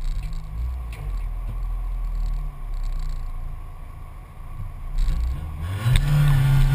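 Škoda Felicia rally car's engine idling with small throttle blips at the start line, heard from inside the cabin; about six seconds in the revs rise and are held high, ready for the launch.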